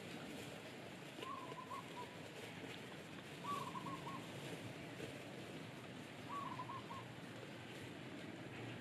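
A bird calling in the background: three short phrases of about four quick notes each, repeated every two to three seconds, over faint outdoor background noise.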